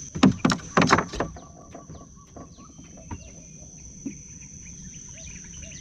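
Steady high-pitched drone of insects, with birds chirping over it in short falling notes. A few loud, short sounds come close together in the first second or so.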